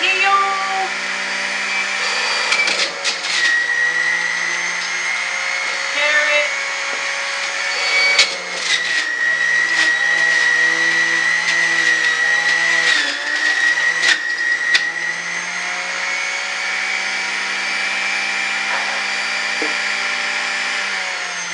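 Electric juicer running steadily with a high whine, the motor dropping a little in pitch twice as vegetables are pushed down the feed chute, with a few sharp knocks.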